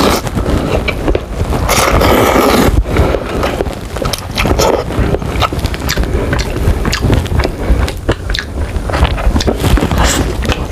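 Close-miked eating sounds: a slurp of noodles about two seconds in, then wet chewing and lip smacking, and a bite into a sticky sauce-glazed chicken wing near the end.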